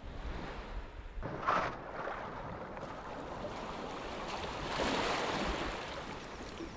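Sea water splashing and rushing around a small boat, with wind buffeting the microphone; the splashing swells about a second and a half in and again around five seconds.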